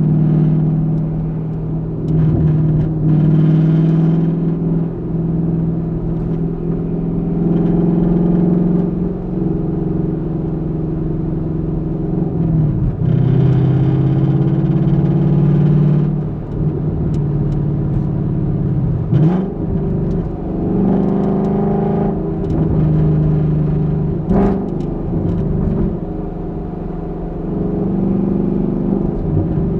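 2021 Ford Mustang GT's 5.0 L V8 exhaust, picked up from inside the trunk, running at low revs through city driving. Its pitch drops and climbs back up a few times as the revs change.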